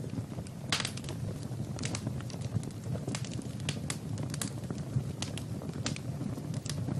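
Wood fire in a fireplace crackling, with sharp, irregular pops several times a second over a low, steady rumble.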